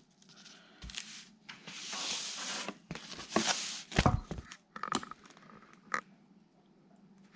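Packaging being handled and torn open, with rustling and tearing in two stretches and a few sharp knocks and clicks as parts are set down.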